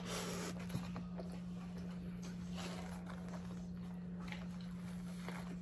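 Soft chewing and mouth sounds of someone eating fufu and steak, over a steady low hum.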